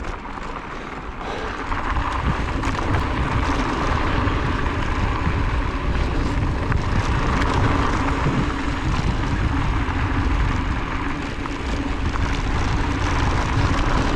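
Wind rumbling on the camera microphone, with trail noise from a mountain bike in motion. It steps up in loudness about two seconds in and then holds steady.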